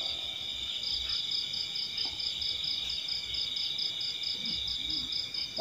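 Crickets calling: one steady high trill, with a second insect chirping over it in quick even pulses of about five a second.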